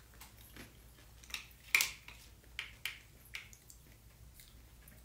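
Eating sounds: chopsticks and plastic takeout food trays clicking and tapping in a string of short, light ticks, the sharpest a little under two seconds in.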